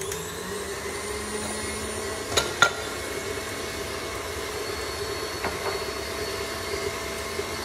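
KitchenAid stand mixer running steadily with its whisk whipping egg whites to stiff peaks. Two sharp knocks come in quick succession about two and a half seconds in.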